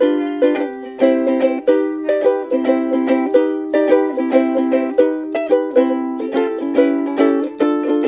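Vintage ukulele strummed solo, chords struck in a steady rhythm with the chord changing every second or so.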